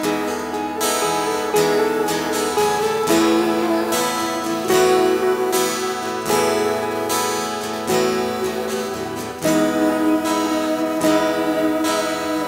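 Live acoustic guitar strummed in a steady rhythm, about one strum every 0.8 s, with an electric guitar playing along, an instrumental passage with no singing.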